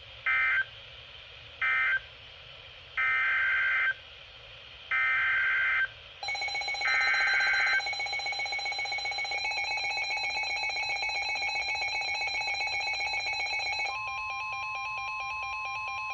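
Emergency Alert System SAME data bursts: two short buzzy screeches, then three longer ones of about a second each. From about six seconds in, a steady electronic alert tone sounds alongside them, and it switches to a different steady pitch near the end.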